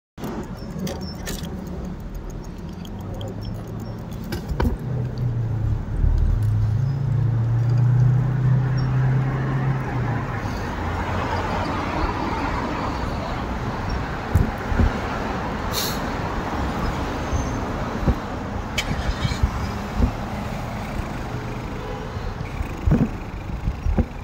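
Street traffic passing: a vehicle's engine hum from about five to ten seconds in, then a vehicle sweeping past, with a few sharp clicks and rattles scattered through.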